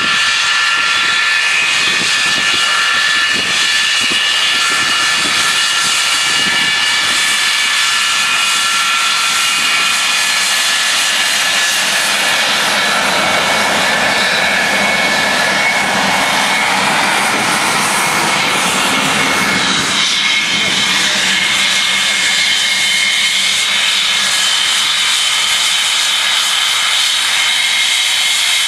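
English Electric Lightning F6 jets taxiing, their twin Rolls-Royce Avon turbojets giving a loud, steady roar with several high whistling whine tones. A broader roar swells about halfway through, and after about two-thirds of the way the whine settles at different pitches as the next jet comes by.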